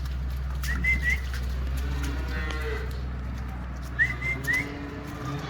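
Cattle mooing, with a few short rising whistles about a second in and again near the end, over a steady low hum.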